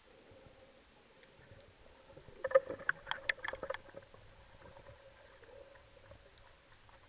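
Underwater, a quick burst of sharp clicks and knocks starting about two and a half seconds in and lasting about a second and a half, over a faint steady hum.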